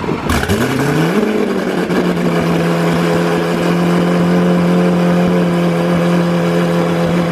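Lamborghini Aventador SV's V12 with an ARMYTRIX titanium straight-pipe exhaust starting up: a sharp bark just after the start, the revs flaring up over about a second, then settling into a steady idle.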